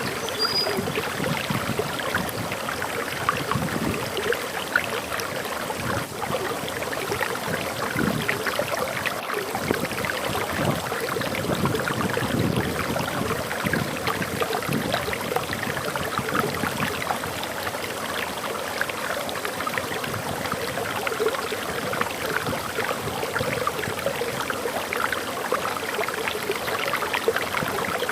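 Water falling over a small forest waterfall: a steady rushing and splashing with gurgling, unchanging throughout.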